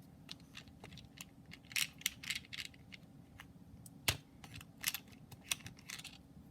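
Small hard resin cabochons being handled in their plastic packet: a run of light clicks and short plastic crinkles, with one sharper click about four seconds in.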